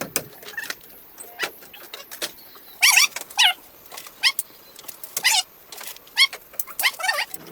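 An animal's short, high-pitched calls, a dozen or so quick chirps that slide up and down in pitch, mixed with scattered sharp clicks.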